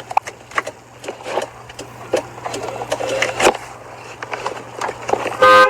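Scattered light clicks and knocks over a low steady hum, then near the end a short, loud single car horn beep.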